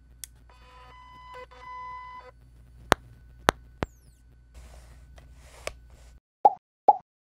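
Electronic logo-intro sound effects over a low steady hum: a brief chord of steady beep-like tones, then three sharp clicks, the last trailing a falling whistle. A burst of hiss follows, and three short, loud knocks come near the end.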